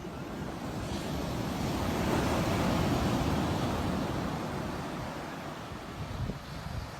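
Sea waves: the rush of surf swells to a peak about two to three seconds in, then slowly falls away.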